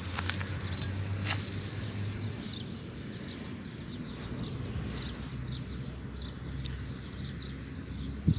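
Birds chirping over and over in quick short calls, over a low steady hum that fades after about two seconds; a single sharp knock near the end.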